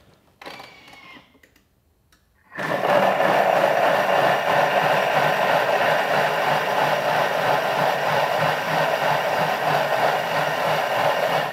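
Countertop blender switched on about two and a half seconds in, running loud and steady as it purées papaya, cucumber and cold vegetable broth into a soup, then cutting off at the very end.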